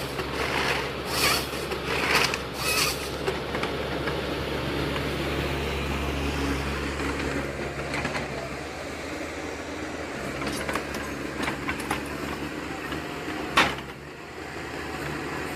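Industrial woodworking machinery running with a steady low hum, with several short hissing bursts in the first three seconds and one sharp knock near the end.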